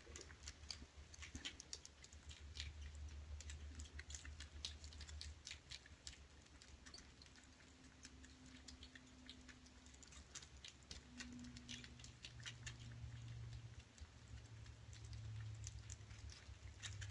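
Faint, irregular small clicks and smacks of kittens chewing and eating from a food dish.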